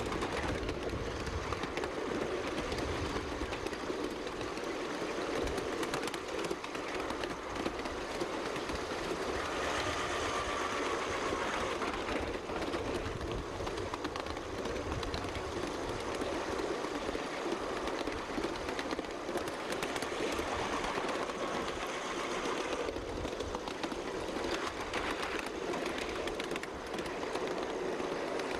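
Ride-on miniature railway train running steadily along its narrow track: an unbroken rumble of the locomotive and its wheels on the rails.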